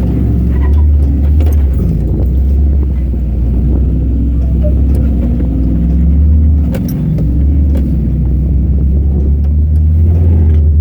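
Off-road vehicle running, a steady low engine and drivetrain drone with scattered knocks and rattles. The drone dips briefly about seven seconds in, then comes back.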